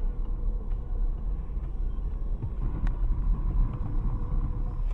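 Steady low rumble of a moving car, engine and road noise, with one faint click about three seconds in.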